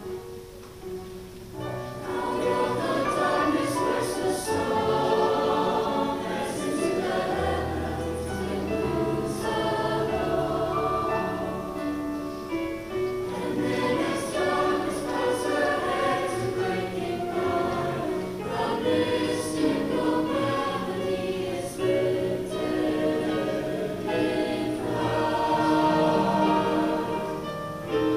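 Mixed-voice high school choir singing a choral piece in parts, male and female voices together. The singing swells to full volume about two seconds in.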